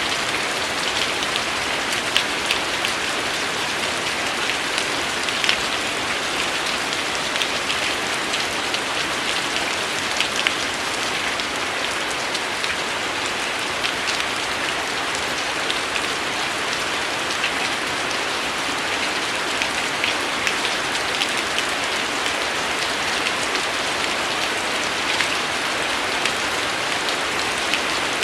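Steady rain falling on a surface, a constant hiss dotted with the sharper taps of individual drops.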